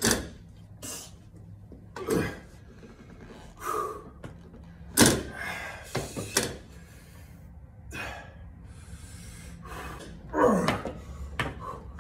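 Several sudden thumps and knocks from 50-pound rubber hex dumbbells and an adjustable weight bench as a lifter rocks the dumbbells off his knees and lies back into position, with short effortful breaths between them. The loudest thump comes about five seconds in.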